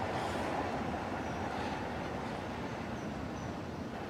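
Fire engine's engine running steadily, a low, even rumble with no siren.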